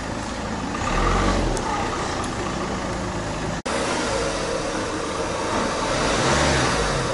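Outdoor street sound dominated by a vehicle engine, swelling about a second in. After a momentary dropout about halfway, a police van's engine is heard as it drives slowly up, its pitch rising and falling near the end.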